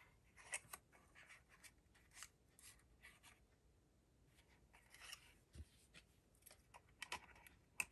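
Faint rustling and light clicks of a small cardstock box being pressed and handled between the fingers.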